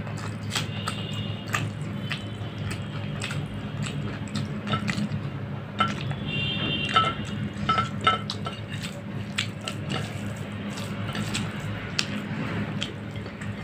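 Wet squishing and smacking as a bare hand mixes rice with dal on a plate and the rice is eaten, in many short clicks over a low steady hum.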